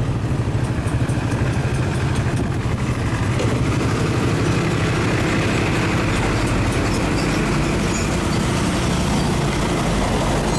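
Small motorcycle engine running steadily, with a fast even firing pulse.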